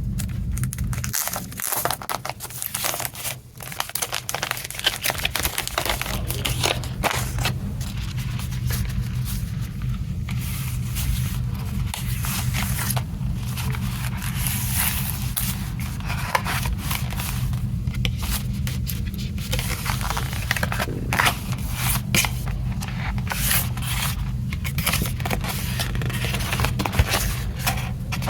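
Plastic wrapping and packaging being handled and opened on a CD: crinkling, tearing and scraping with many small clicks, over a steady low hum.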